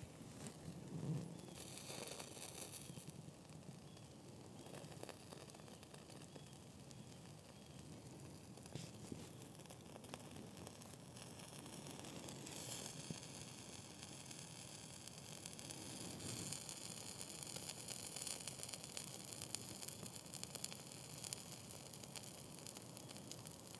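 Cotton-ball fire starters, one soaked in Vaseline and one in cooking oil and both wetted with water, burning with a faint hiss and crackle and pop. The hiss grows brighter about halfway through.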